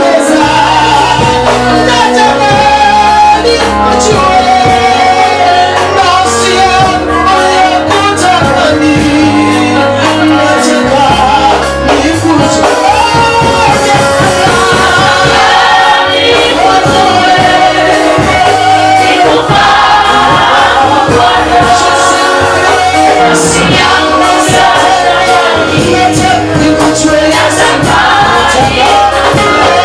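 Live gospel worship music: a group of voices singing over instrumental backing with a stepping bass line, loud and continuous.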